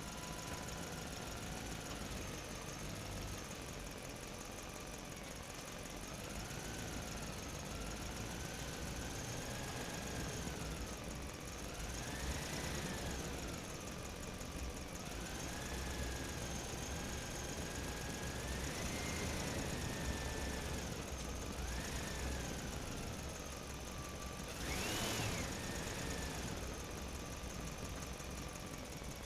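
Vehicle engine running steadily, its whine rising and falling again and again as it revs, with one sharper rise near the end.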